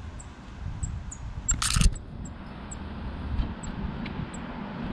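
A brief clattering rattle about a second and a half in, from the blue jay feeding, over a steady low outdoor rumble. A few faint, very high ticks are scattered through.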